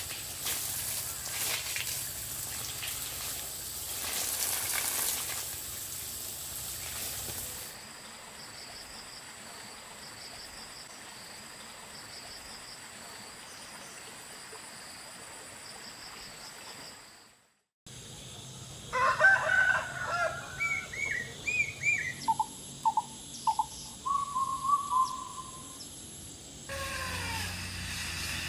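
A garden hose sprays water for the first seven or eight seconds. A quieter outdoor background with a steady high trill follows. After a brief dropout, domestic chickens call in a quick run of loud short calls for several seconds.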